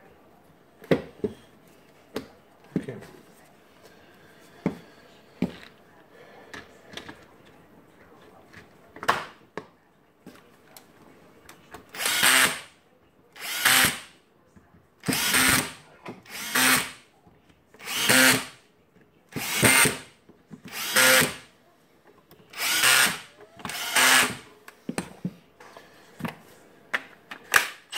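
Makita DHP480 18V cordless drill, chuck removed, run in about nine short trigger bursts about one and a half seconds apart: a test run of the freshly reassembled gearbox, which now turns. Before that, sharp clicks and knocks of the drill's parts being handled and fitted together.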